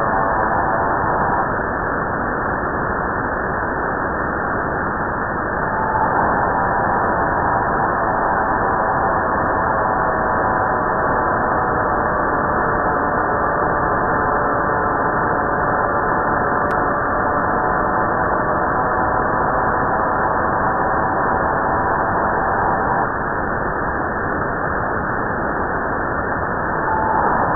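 Shortwave receiver audio on 4623 kHz: steady static hiss with a multi-tone signal of several steady tones sounding together, which the uploader wonders may be a data burst. The tones stop about a second and a half in, return at about six seconds, break off again at about twenty-three seconds and come back near the end.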